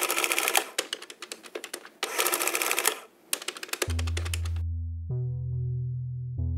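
Two bursts of fast, dense typewriter-like clicking with scattered clicks between them, then about four seconds in an electronic music sting begins: a sustained deep bass note with synth chords striking about a second and about two and a half seconds later.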